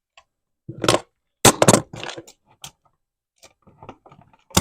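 A wall outlet being pushed back into its electrical box: a series of sharp clicks and knocks, the loudest cluster about one and a half seconds in.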